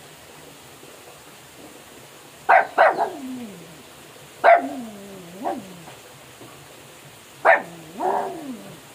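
Pug barking in three bouts, starting about two and a half seconds in; each bout is a sharp bark that trails off into a falling, drawn-out note.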